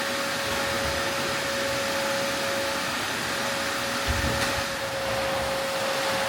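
Vacuum cleaner running steadily with a constant whine, with a brief low bump about four seconds in.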